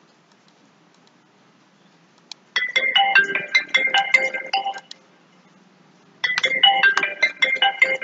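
Phone ringtone: a short melody of quick electronic notes, starting about two and a half seconds in and played twice.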